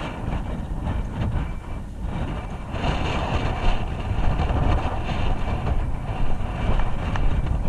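Road noise inside a moving van: a steady low rumble with loose rattles and knocks, growing a little louder after about three seconds.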